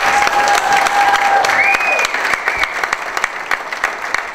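Audience applauding, a dense patter of many hands clapping. A steady whistling tone rides over the clapping for the first two seconds or so, jumping higher about a second and a half in.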